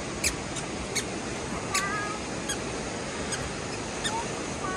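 Steady rushing of Birthi waterfall, with short high-pitched chirps repeating about every three-quarters of a second and a few faint squeaks.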